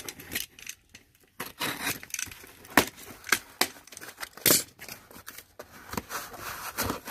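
Small taped cardboard box being pulled open by hand: tape and flaps tearing apart, with cardboard rustling and scraping and a few sharp knocks.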